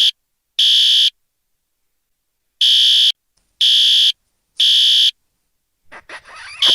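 Fire alarm sounding the three-beep evacuation pattern: loud high-pitched beeps about half a second long, three in a row about a second apart, a pause of about a second and a half, then three more. A brief falling sound comes just before the end.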